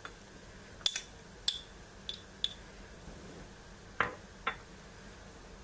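Light clinks of a spoon against a mixer-grinder jar as grated coconut is spooned in: four sharp, ringing clinks in the first two and a half seconds, then two duller taps about four seconds in.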